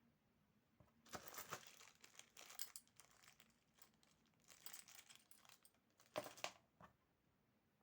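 Crinkling and rustling of handled packaging or plastic, in irregular bursts starting about a second in, with a couple of sharper crackles near the end.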